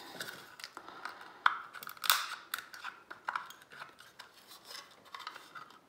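Flathead screwdriver prying at the seam of a plastic USB charger case: small scrapes and clicks of plastic, with a sharp click about a second and a half in and a louder crackling scrape just after.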